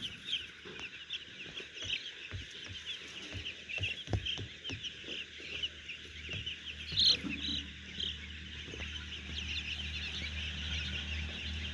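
A crowd of young poultry chicks peeping continuously, a dense chorus of short high cheeps with a louder cluster about seven seconds in. A low steady hum runs underneath, growing stronger in the second half, with a few light knocks.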